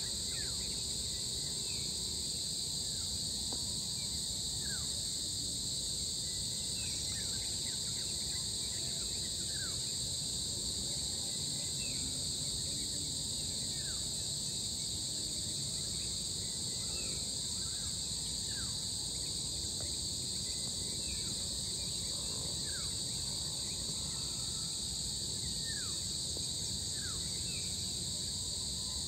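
Steady, unbroken high chorus of insects. Short falling bird chirps come every second or two over a low background rumble.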